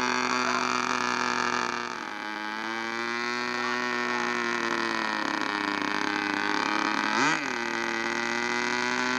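Model airplane glow-plug engine running on the ground, a steady buzz. Its pitch sags about two seconds in and climbs back, dips slightly again later, and gives one quick sharp rise and fall about seven seconds in.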